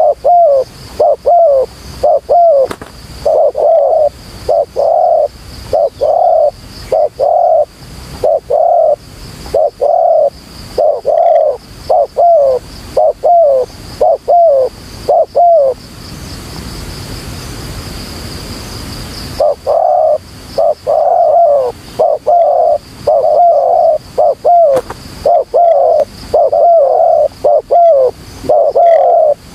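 Spotted dove cooing over and over, short coos repeated about two a second, loud and close. The calling stops for a few seconds about halfway through, then starts again.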